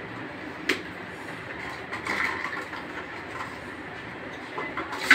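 A small plastic glue tube and its cardboard box handled by hand: a few sharp clicks and some rustling over a steady background hum, with a click about a second in and the loudest one at the very end.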